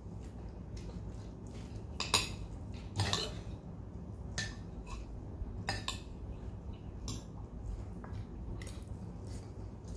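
Cutlery clinking against a plate while eating: about half a dozen scattered clinks, the loudest about two and three seconds in, over a low steady hum.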